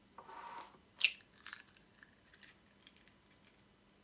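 An egg cracked sharply on the rim of a ceramic cup about a second in, after a brief rustle, followed by a few faint ticks of the shell being pulled apart.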